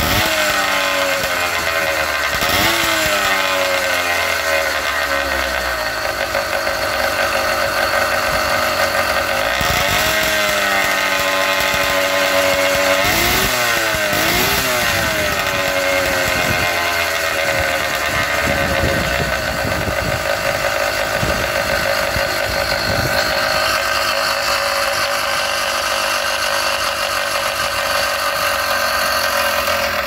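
Two-stroke motorized-bicycle engine kit with a chrome expansion-chamber exhaust, idling and revved a few times: the pitch rises and falls near three seconds, around ten seconds and twice around thirteen to fourteen seconds, then settles back to a steady idle.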